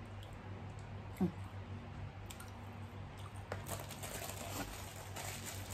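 Close-miked chewing of grilled chicken: wet mouth clicks and crackles, thickest in the second half, with a brief voiced hum about a second in, over a low steady electrical hum.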